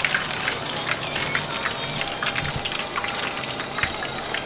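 Hot oil in a street-stall deep fryer sizzling and crackling steadily, with many small pops.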